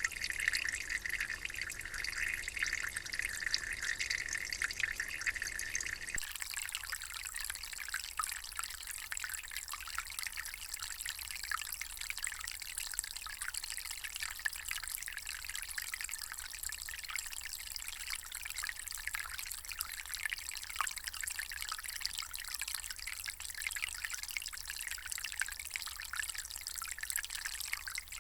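Water trickling and dripping. About six seconds in it changes abruptly to a different, higher and thinner trickle, which runs steadily to the end.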